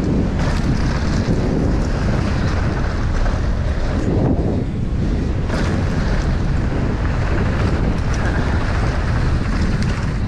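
Wind buffeting the camera microphone over the tyre roar of a downhill mountain bike running fast on a dirt track, with a few sharp knocks from the bike.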